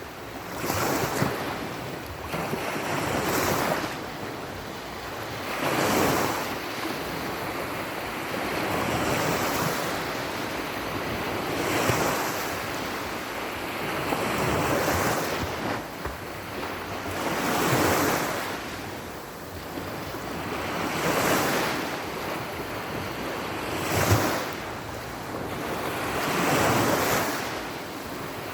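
Sea surf: waves breaking and washing in, swelling and ebbing about every three seconds, with one sharper crash near the end.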